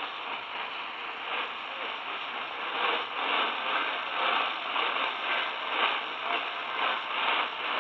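Radio static from a weak, distant signal: a hiss with a rough, crackling pulse of about two a second, cut off in the upper range as through a narrow radio channel.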